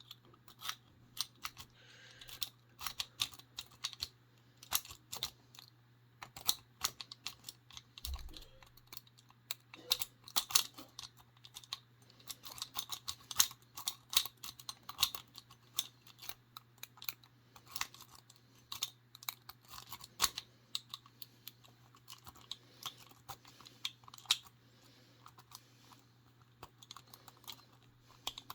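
A lock-pick rake clicking and scraping across the pins of a Château C970 six-pin discus padlock, in quick irregular runs of small metallic clicks that thin out near the end. The lock is not opening to the rake.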